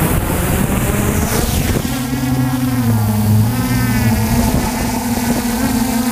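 DJI F450 quadcopter's electric motors and propellers buzzing loudly as it lifts off and climbs, the pitch shifting about two seconds in and then holding steady.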